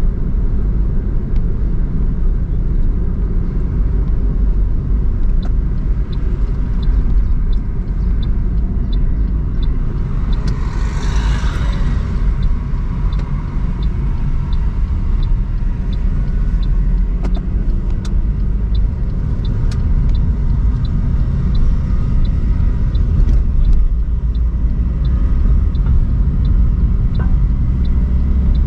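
A car driving, with a steady low rumble of engine and road. A regular light ticking, about one and a half ticks a second, runs through most of it, and a short hiss swells up about ten seconds in.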